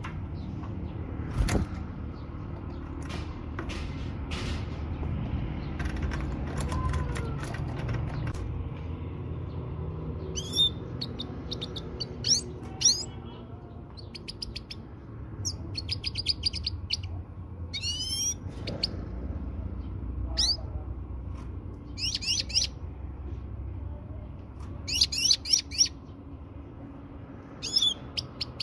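European goldfinch calling in groups of short, high, rapid twitters and sharp rising chirps, starting about ten seconds in; these are offered as a female's calls meant to stir a male to sing and mate. A sharp knock and a low rumble come in the first few seconds.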